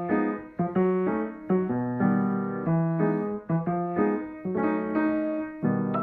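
Piano music: a quick run of struck chords, each one starting sharply and dying away before the next.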